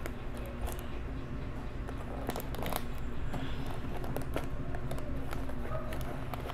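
Small cardboard LEGO box being pried and fumbled at by hand: scattered scrapes and small clicks over a steady low hum.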